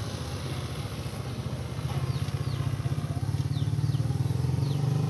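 Corded electric hair clipper buzzing steadily as it shaves a head down to stubble, growing louder about two seconds in and easing off near the end.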